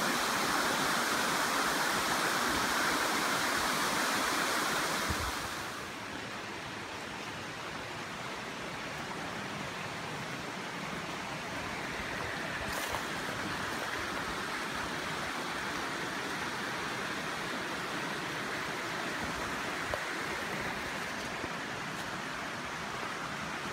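Waterfall and stream rushing in a steady hiss of falling water, louder for about the first five seconds and then dropping to a quieter, even level.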